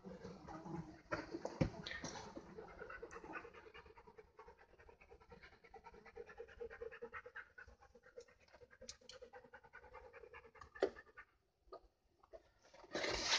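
Close, rapid panting, with scattered sharp clicks and scrapes and a short, louder burst of rustling noise near the end.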